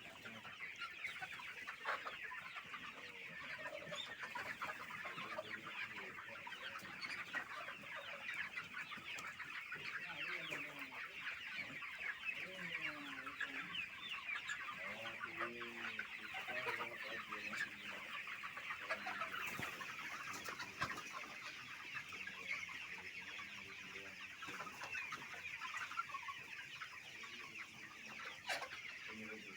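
A flock of Aseel country chickens clucking and calling: a dense, steady chatter of short high calls, with lower clucks scattered through it.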